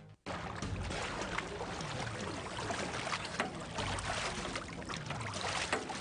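Lake water lapping and splashing around a boat's swim ladder as a swimmer moves in the water: a steady, even wash.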